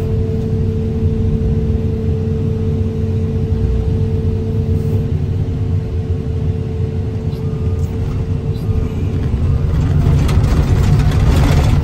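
Excavator's heavy diesel engine running under load as its grapple lifts and swings a crushed car, a low steady drone with a steady whine that stops about halfway through. It grows louder near the end with metal rattling.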